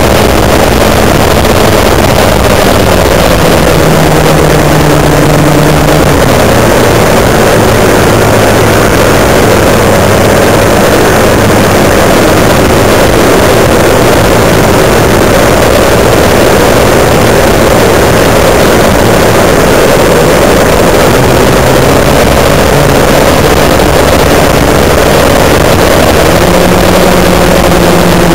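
Twin electric motors and propellers of an RC model plane heard from a camera on board, a loud steady drone over rushing air. The pitch drops a few seconds in, holds lower through the middle, and climbs again near the end.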